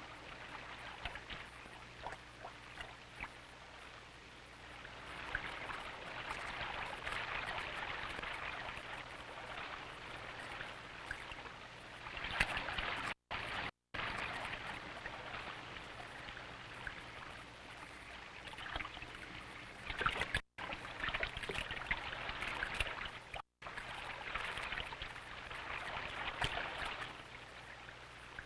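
Rushing, splashing river water, fainter for the first few seconds and then louder, swelling and ebbing. A steady low hum lies beneath, and the sound cuts out completely for a moment four times.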